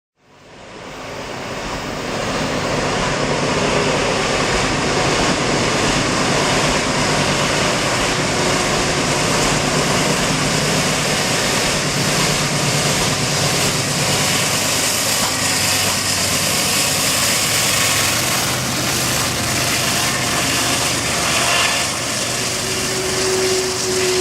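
CSX diesel-electric freight locomotive working hard upgrade, its engine running under heavy load with a misfire. The sound fades in over the first two seconds and then holds steady, with a steady tone coming in near the end.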